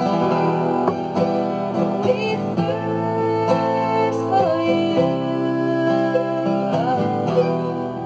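Acoustic guitar and mandolin playing a worship song on Em, Am and C chords, with a woman singing a drawn-out wordless "ooh" that wavers in pitch.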